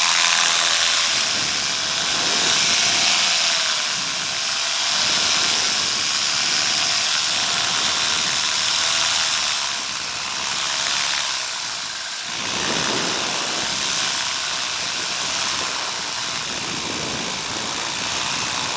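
Paramotor engine and propeller running, its pitch wavering in the first few seconds, under heavy wind rush on the microphone.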